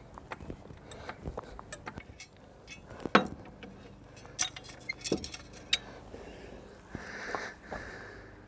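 Scattered clicks and clinks of small hard objects, such as tools and metal hardware, being handled and set down, with a few louder knocks in the middle and a short rustling stretch near the end.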